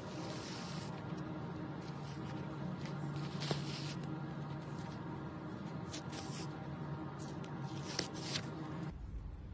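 Kinetic sand being squished and crumbled by hand: several short, soft hissing crunches over a steady low hum, and the background changes abruptly near the end.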